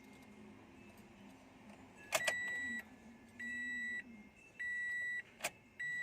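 2014 Toyota Vios dashboard warning chime beeping four times, evenly about a second apart, after a sharp click of the ignition key, with another click near the end. The key is being switched on and off before starting, to prime the fuel system.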